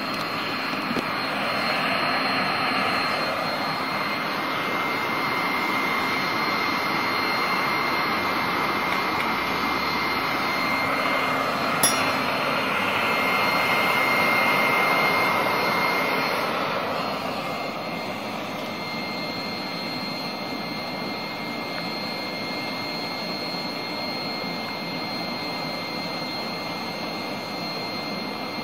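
Electric blower forcing air into a charcoal furnace that is melting aluminium: a steady rush of air with a high motor whine. It drops to a lower level about two-thirds of the way through, and there is a single sharp click near the middle.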